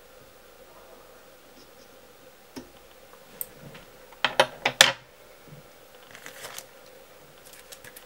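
Small sharp clicks and snips of fly-tying tools being handled, loudest in a quick cluster of four or five clicks about four to five seconds in, with lighter rattles later. A faint steady hum runs underneath.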